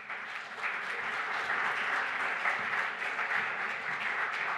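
Audience applauding, a dense steady clatter of many hands clapping.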